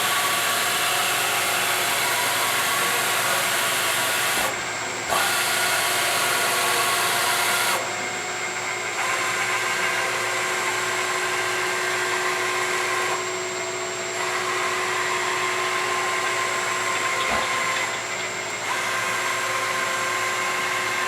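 Top One CNC bed mill's motors running: a steady whine made of several tones over a hiss, the hiss cutting back and coming in again in steps every few seconds.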